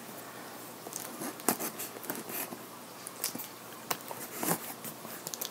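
Folding knife slitting the packing tape on a cardboard box, with scattered faint scrapes and clicks as the box is held and turned.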